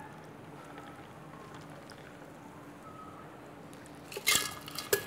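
Faint trickle of a shaken cocktail being strained over ice into a tumbler, then near the end two sharp ringing clinks, about half a second apart, as the bar equipment is set down.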